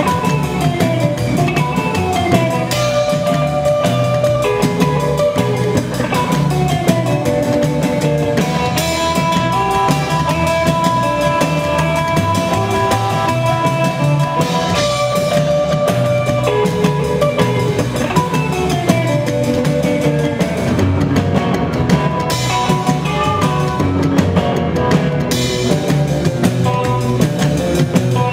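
Live rock and roll band playing: hollow-body electric guitar over a drum kit with a steady beat.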